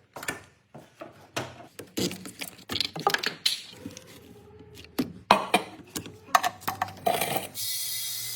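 Metal tools and brake parts clinking and knocking irregularly during a front brake pad and rotor job, with a steady hiss starting near the end.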